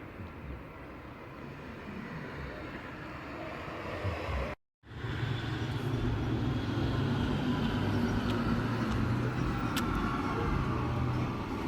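Steady traffic-like background noise. After a sudden brief dropout to silence near the middle, a louder steady low engine hum, like a motor vehicle running nearby.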